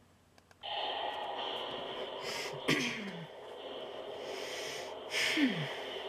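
Music video soundtrack starting up from a laptop speaker about half a second in: a steady, muffled hiss-like ambience with two short falling sounds.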